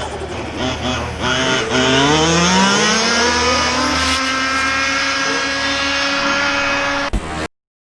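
An RC car's motor whines up in pitch over about a second and a half, then holds a steady high whine at speed. Near the end there is a sharp click, and the sound cuts off suddenly.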